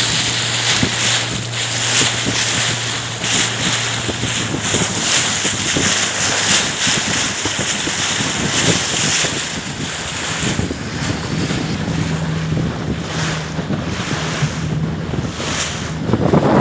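Wind buffeting the microphone and water rushing past a moving boat, over the low steady hum of its engine, which shifts a little higher in pitch about halfway through.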